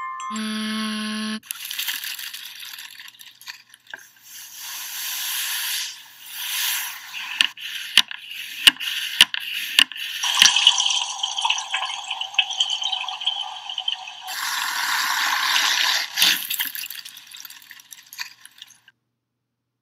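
A chime tone ringing for about the first second, then hissing, crackling noise with about six sharp clicks around the middle, cutting off shortly before the end.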